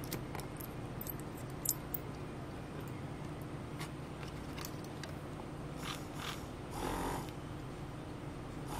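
Small clicks and taps as a 3D-printed plastic part and small hand tools are handled, over a steady low hum, with a short scraping rasp about seven seconds in.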